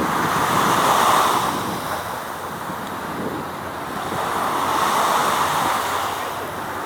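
Rushing outdoor noise of wind and waves, swelling twice, about a second in and again around five seconds.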